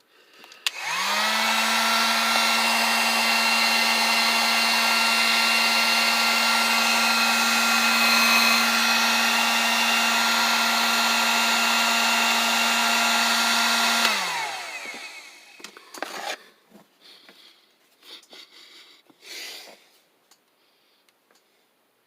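Drill Master dual-temperature heat gun's fan motor spinning up with a rising hum, then running with a steady whirring hum for about thirteen seconds. It is switched off and winds down with a falling pitch. A few faint handling knocks follow.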